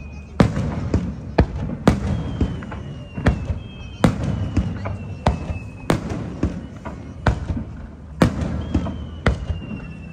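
Aerial fireworks shells bursting in quick succession, about one to two sharp bangs a second with a low rumbling echo between them. Several thin high whistles glide slightly down in pitch over a second or two each.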